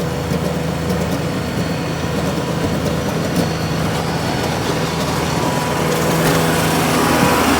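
Farm tractor engine running steadily, driving a PTO snowblower. About six seconds in the sound gets louder, with more hiss.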